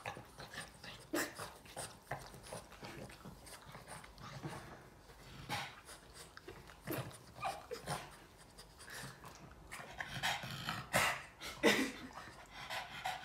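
Boston terrier licking a person's face and panting: a run of short, irregular wet smacks and quick breaths, busier near the end.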